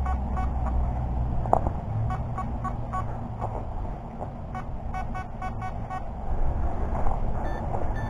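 Nokta Makro Anfibio Multi metal detector giving short, repeated target beeps as its coil sweeps over the ground, several in quick runs, over a steady low rumble.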